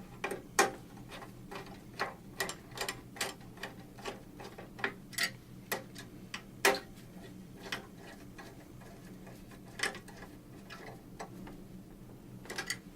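Ratcheting torque wrench clicking as bolts are run down on the primary adapters: a quick series of sharp clicks, a few per second, then a few scattered clicks later on. Underneath is a steady low hum.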